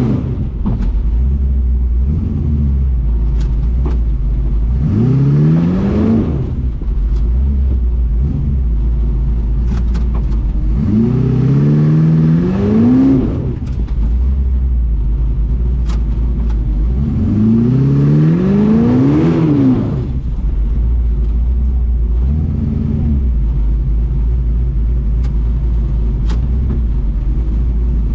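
Engine of an FJ40-based off-road buggy, heard from inside the vehicle, revving up in repeated rising pulls about every six seconds, each climbing for a second or two before dropping back to a low rumble.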